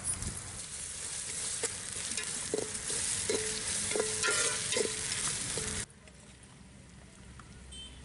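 Onions, green chillies and spice paste frying in a metal pot, with a metal spatula stirring and scraping against the pot; its strikes on the pot ring out about seven times. The frying and stirring cut off abruptly about six seconds in, leaving only faint outdoor background.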